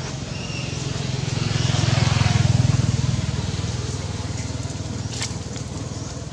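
A motor vehicle's engine passing by, its low rumble swelling to a peak about two to three seconds in and then fading away. A short sharp click comes about five seconds in.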